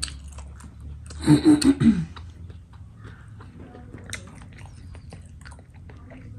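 A person eating, chewing food with small wet clicks and crunches. A short burst of voice cuts in about a second in.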